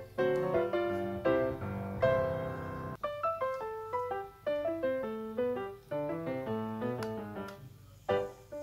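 Background piano music: a melody of short struck notes, with a chord held briefly about two seconds in.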